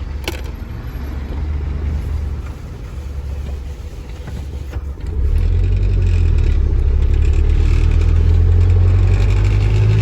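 Delivery truck's engine running under the driver, with a sharp click just after the start; about five seconds in it gets louder as the truck pulls away and accelerates, with a rising whine near the end.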